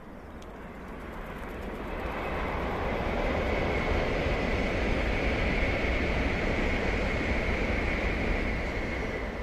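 Tokaido Shinkansen bullet train passing along an elevated viaduct at speed. Its rushing noise swells over the first few seconds, holds with a steady high whine, and starts to fade near the end, over low wind rumble on the microphone.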